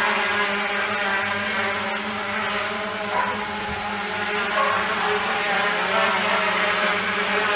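Small quadcopter's four motors and propellers buzzing steadily as it hovers just above the ground.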